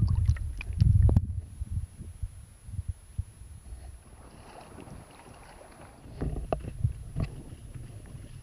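Waves sloshing and slapping against a kayak's bow and its bow-mounted action camera housing, which briefly goes under. There are heavy low thumps in the first second, a quieter stretch, then another run of splashes and knocks about six to seven seconds in.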